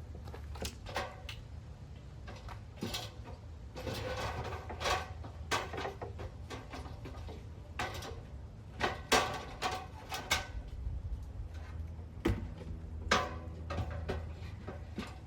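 Irregular knocks and clicks, a few of them briefly ringing, over a steady low hum.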